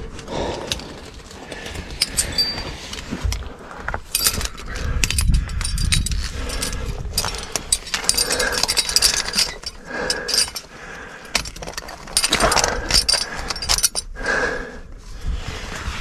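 Climbing hardware (carabiners, quickdraws and cams on a rack) clinking and jangling, with body and clothing scraping against sandstone as a climber squeezes up a chimney crack. Hard breaths come about every couple of seconds.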